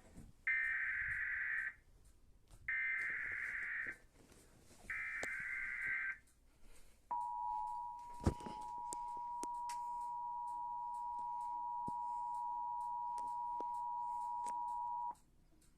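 Emergency Alert System broadcast tones announcing a flash flood warning: three one-second bursts of the buzzing SAME digital header, then the two-tone attention signal (853 and 960 Hz sounded together) held steady for about eight seconds and cut off sharply. A sharp click lands about a second into the steady tone.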